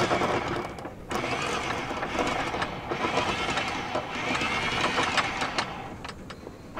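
Electric anchor windlass hauling in the anchor chain, its motor whirring as the chain comes aboard; it stops briefly about a second in and then runs again.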